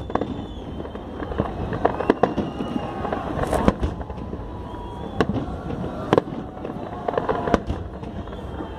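Aerial firework shells bursting: about a dozen sharp bangs at uneven intervals, roughly one a second, over a steady background noise.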